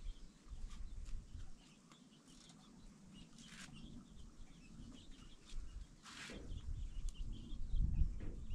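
Farmyard ambience: chickens clucking and small birds chirping, with a low rumble of wind on the microphone near the start and end. A brief rasping noise comes about six seconds in.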